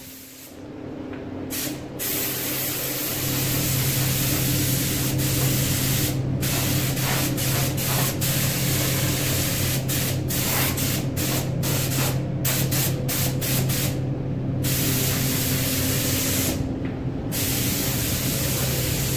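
Gravity-feed compressed-air paint spray gun hissing as it sprays, with short breaks where the trigger is let off between passes, several in quick succession around the middle. A steady low hum runs underneath.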